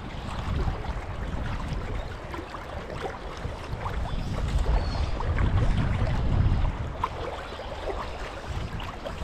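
River water running over a riffle, with wind buffeting the microphone in a low, uneven rumble that swells through the middle.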